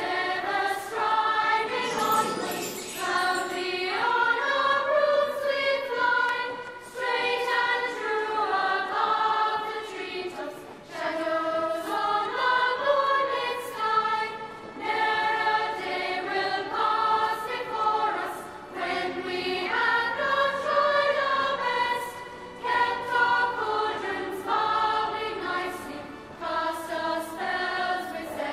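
Title theme music: a sung, choir-like melody with tinkling, bell-like percussion keeping a regular beat.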